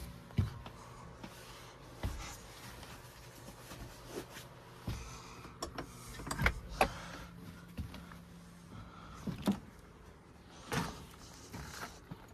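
Scattered knocks, clicks and thumps from a truck camper's entry door being handled as someone steps out, over a low steady hum that stops about nine to ten seconds in.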